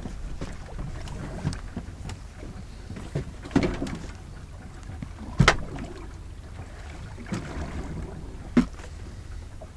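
Wind rumbling on the microphone over water noise around a small drifting boat. A few short, sharp knocks break in, the loudest about five and a half seconds in.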